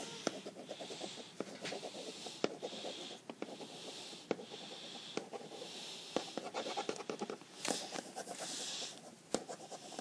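Pencil scratching on paper in quick, continuous writing strokes, with a few sharp taps along the way.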